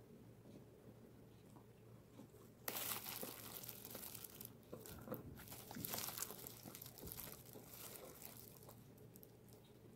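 Food packaging crinkling and rustling as it is handled, starting suddenly about two and a half seconds in and tapering off near the end.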